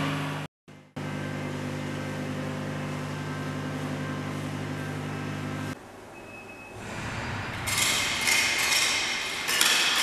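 Steady machine hum with several low tones, broken by a brief dropout about half a second in. It stops about two-thirds of the way through, leaving quieter room noise, and scratchy rustling and clatter come in near the end.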